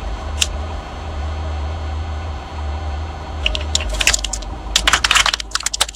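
A car's engine rumbling low, then a run of sharp crackling and crunching starting about three and a half seconds in and densest near the end, as crunchy objects are crushed under its tyre.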